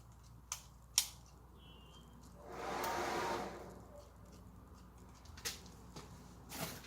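A hair dryer used as a forge blower whirs up for about a second and a half and dies away. A few sharp clicks sound before and after it, the loudest about a second in. The dryer is failing to keep running, which the smith takes for a blown-out blow dryer.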